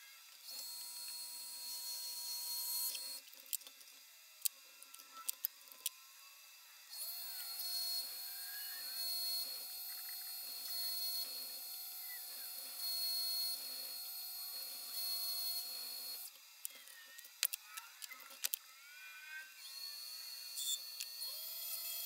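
Small benchtop metal lathe running while a twist drill in the tailstock chuck bores into the end of round bar stock, with a steady motor whine. It runs for about three seconds near the start, then again for about nine seconds from seven seconds in. Between the runs there are scattered clicks and knocks.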